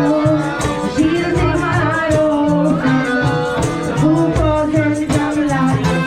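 Music with a steady beat, a bass line and a singing voice.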